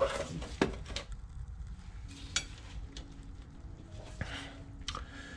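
Scattered metallic clicks and knocks of tools and parts being handled while a Rolls-Royce Phantom I clutch assembly is worked into place, the loudest at the very start. A faint steady hum comes in about two seconds in.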